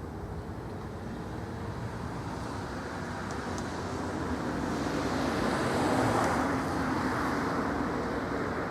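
Outdoor road traffic noise: a steady rush that swells as a vehicle passes, loudest about six seconds in, then eases off.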